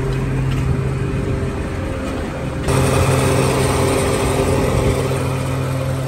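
Porsche 944's four-cylinder engine running at a steady speed with a steady hum. The sound steps up louder about two and a half seconds in.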